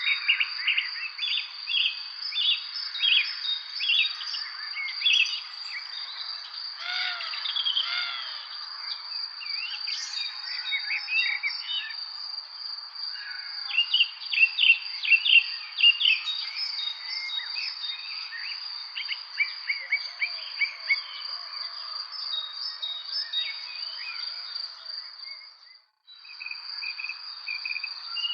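Evening bird chorus: many birds chirping and singing over a steady high trill. The whole sound cuts out for a moment about two seconds before the end, then resumes.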